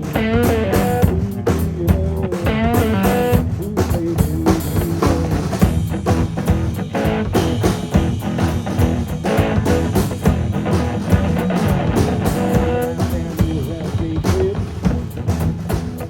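Live blues band playing: electric guitar lead with bending, wavering notes over bass and a drum kit keeping a steady beat.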